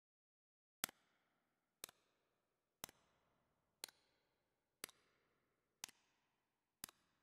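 A clock ticking: one sharp tick a second, seven in all, with near silence between them.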